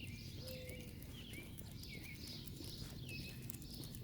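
A bird calling over and over, short slurred chirps about one and a half times a second, over a faint low background rumble.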